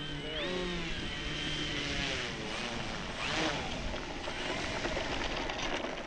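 Electric motor and propeller of an FMS 2000mm DHC-2 Beaver RC model taxiing, its whine rising and falling in pitch as the throttle is worked, near the start and again about three seconds in, over steady wind noise.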